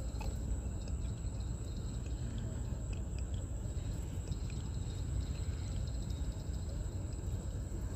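Steady open-river ambience: a constant low rumble with a continuous high-pitched insect drone, and a few faint ticks.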